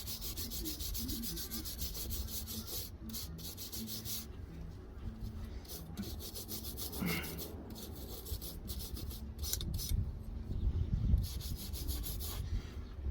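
Hand wire brush scrubbing metal brake parts in rapid back-and-forth strokes, a scratchy rasping with a few brief pauses.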